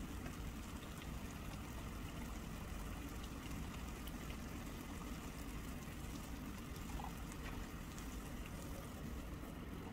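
Thick curry sauce simmering and bubbling in a frying pan, a steady soft sizzle, with fresh cream added and stirred in with a spoon in the second half.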